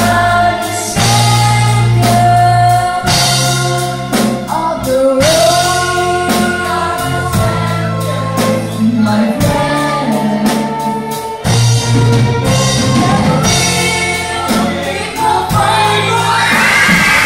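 Live amplified performance: a female vocalist sings into a microphone over a string orchestra and a children's choir, with a steady beat of percussive hits under sustained low notes. Near the end, shouting from the crowd joins in.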